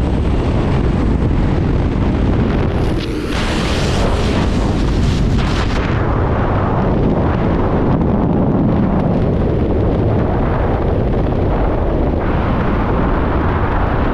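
Heavy wind noise on a body-worn camera's microphone during a skydive. It starts as the jump plane's door noise, and about three seconds in turns into the steady loud rush of freefall air.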